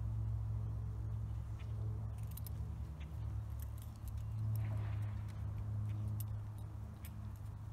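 Light metallic jingling and clinking of a dog's leash clip and collar as the dog moves about on a tie-out trolley line, over a steady low rumble.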